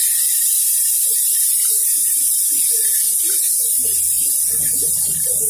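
Water hitting hot oil in a kadhai with mustard seeds, sesame seeds, green chillies and curry leaves, sizzling with a loud, steady, high hiss.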